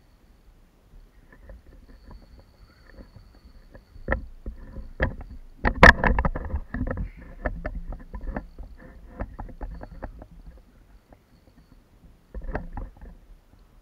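Irregular knocks and clicks of a spinning rod and reel being worked against a plastic kayak while a hooked fish is fought, loudest a little under halfway through, with another short cluster near the end.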